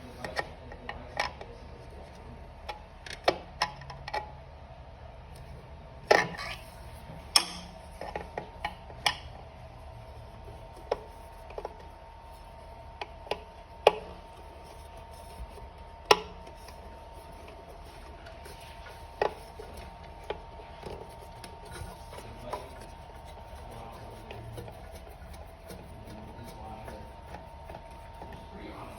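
Screwdriver working two small screws out of an electric bike battery's power connector: scattered, irregular small metallic clicks and taps over a faint steady hum.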